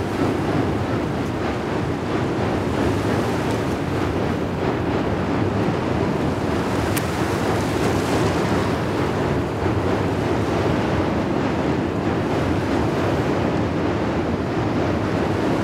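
Steady rush of river water lapping against a rocky shore, mixed with wind on the microphone.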